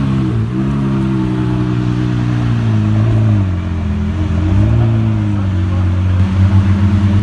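Twin-turbocharged V12 of a GAD Motors-tuned Lamborghini Aventador running at idle, its revs rising and falling a couple of times with light throttle. A rapid pulsing stutter in the exhaust note lasts about a second near the end.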